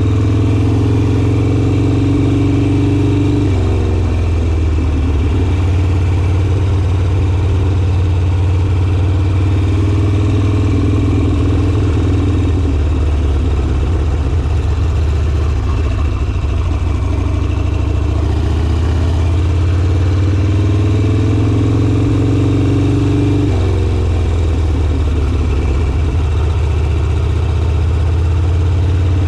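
Harley-Davidson Sportster's air-cooled V-twin engine running at low road speed, with its engine note shifting as the throttle and speed change, once a few seconds in and again later on.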